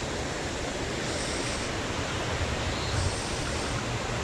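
Fast-flowing mountain stream rushing steadily over its bed.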